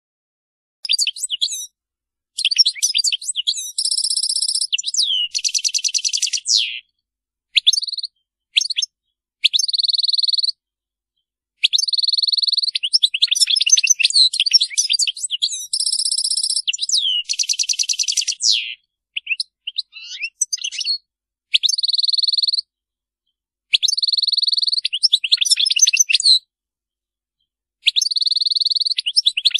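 European goldfinch singing a Wedani-style song: bright twittering phrases with buzzy held notes and fast rattling trills, broken by short silent gaps.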